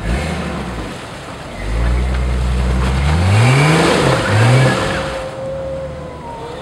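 Off-road SUV's engine revving under load as it crawls up a deep muddy rut. The pitch climbs to a peak about four seconds in, drops, rises again briefly, then settles back.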